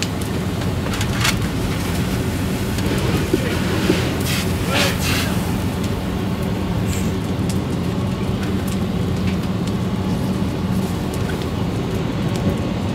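Fire engine running steadily with a low rumble, with a few short hissing bursts over it, the strongest about five seconds in.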